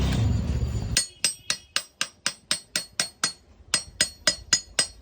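Rapid metallic taps, about four a second, each ringing briefly, with a short pause about halfway through.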